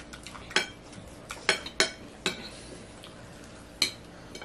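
Metal spoons clinking and scraping against ceramic plates as people eat, with about six sharp, separate clinks over a quiet room background.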